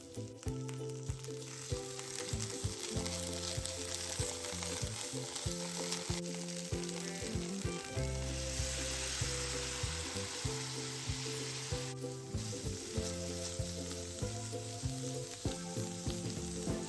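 Food frying in a hot pan, a continuous sizzle with frequent short clicks of a utensil stirring and scraping the pan.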